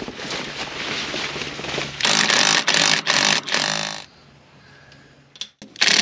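A cordless impact wrench hammers bolts on a center-pivot irrigation tower's drive shaft coupling. It runs in one long rattling burst of about two seconds, starting two seconds in, then goes quiet and gives short bursts near the end. Before it comes a scratchy, scuffing noise.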